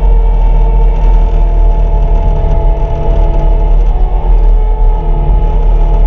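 CAT 259D3 compact track loader running at full travel speed, heard from inside the cab: a steady, loud diesel drone with a deep rumble and several whining tones that shift slightly in pitch about four seconds in.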